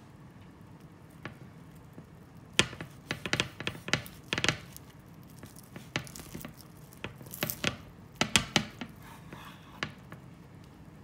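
Large kitchen knife cutting through a bagel sandwich on a wooden cutting board. It makes a run of crisp, uneven crunches and knocks as the blade saws through the crust and filling and meets the board.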